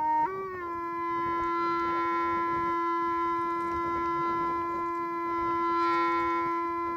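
A wind instrument holding one long steady note after a short sliding rise at the start.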